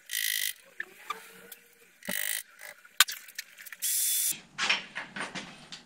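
Bicycle bottom-bracket repair: several short hissing bursts, a sharp click about three seconds in, then handling and knocking at the bottom bracket near the end.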